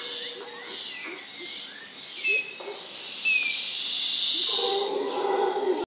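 Nature ambience with short bird-like chirps and two brief whistles, under a steady hiss that swells louder from about three seconds in. A couple of low held tones come in near the end.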